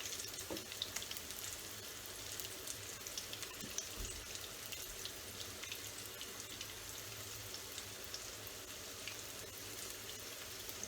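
Boiled potatoes frying in hot mustard oil: a steady sizzle with scattered small crackles and pops, and one soft low thud about four seconds in.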